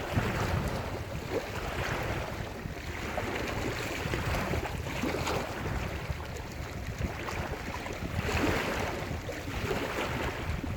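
Lake surf breaking and washing onto the shore, swelling up about every three to four seconds. Wind rumbles on the microphone underneath.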